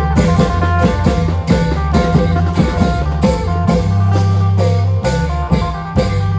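Isan klong yao long-drum band playing: a steady rhythm of drum strikes under a plucked-string melody and a deep held bass line.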